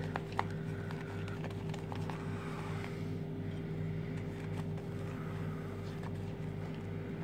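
A steady low mechanical hum, pulsing slightly a few times a second. Under it is the faint swishing of a shaving brush whipping soap lather in a bowl.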